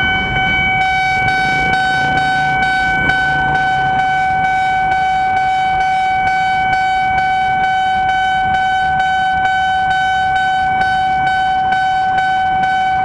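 Railway level-crossing warning alarm sounding: one steady ringing tone that pulses about three times a second without a break, the signal that a train is approaching the lowered barrier. Low traffic rumble underneath.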